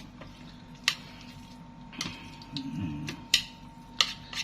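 Metal cutlery clicking against a plate: about five sharp clicks spread over four seconds.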